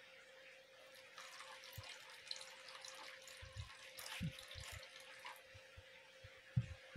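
Faint wet stirring of thick corn-pulp cake batter with a whisk in a plastic bowl, soft squelching clicks, while milk is poured into the batter from a small cup partway through.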